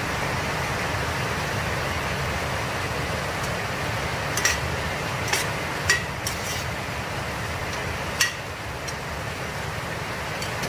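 Chopped chicken gizzards and vegetables sautéing in a steel pot, a steady sizzle, while a spatula stirs them, with several sharp clinks of the spatula against the pot between about four and eight seconds in.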